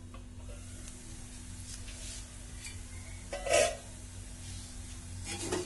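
A stainless-steel lid lifted off an iron kadai and set down with one short metal clank about three and a half seconds in, over a steady low hum. A few light clatters follow near the end.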